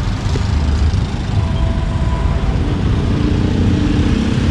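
Road traffic with motor vehicle engines running close by, a steady low rumble.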